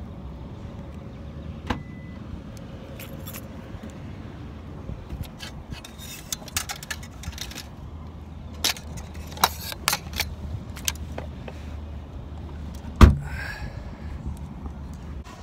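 Keys jangling, with scattered clicks and small rattles, over a steady low rumble. About 13 seconds in comes a single loud thud, a car's rear hatch being shut.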